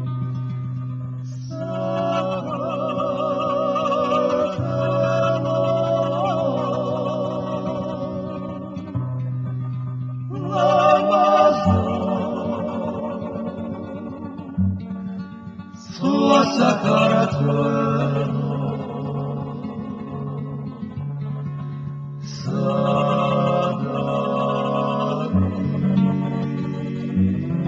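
Background music: a singer with heavy vibrato over plucked guitar accompaniment, in four long phrases.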